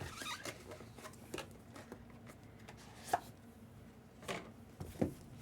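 Hands handling and opening cardboard-and-wrapper packaging: a short rustle, then scattered light taps and clicks, the sharpest about three and five seconds in.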